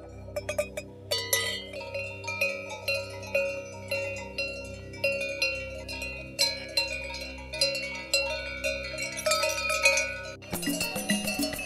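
Metal bells hung on the necks of a yak herd clank irregularly as the animals move, ringing at several different pitches, one or two strikes a second. A few light metallic taps come first, and near the end the clanking turns denser.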